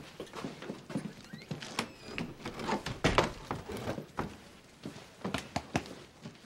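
Footsteps on a wooden floor and scattered light knocks as furniture is handled, with a heavier thump about three seconds in.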